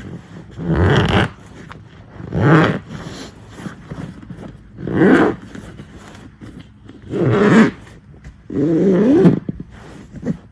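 Zipper on a fabric dog car seat cover being pulled closed in five separate strokes, one about every two seconds.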